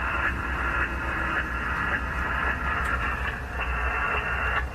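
Steady rushing noise aboard a patrol boat under way in rough sea: wind buffeting the microphone over the low, pulsing rumble of the boat's engine, with a few short knocks.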